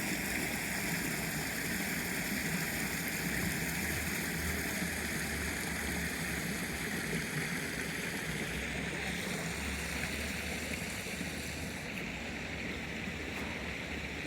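Steady rushing of running water in a shallow stream channel.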